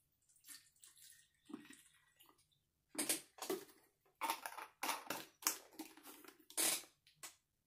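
Witch hazel poured from a plastic bottle into a plastic squeeze wash bottle, a faint trickle. Then, about three seconds in, a run of about eight loud rustling bursts as the two plastic bottles are handled together.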